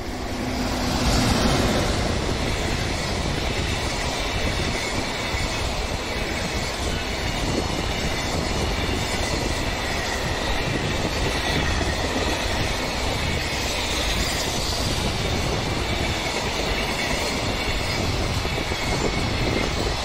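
JR Freight EF210 electric locomotive passing close by, loudest about a second in, followed by a long train of container wagons rolling past with a steady rumble of wheels on rail.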